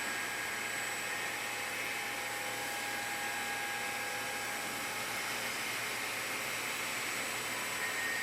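CNC machining equipment running in a plastics machining shop: a steady hiss with faint whine tones that shift now and then.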